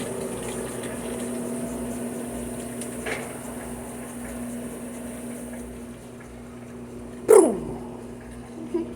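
Electrolux Perfect Wash 16 kg washing machine running with a steady hum. About seven seconds in there is a short, loud cry that falls in pitch.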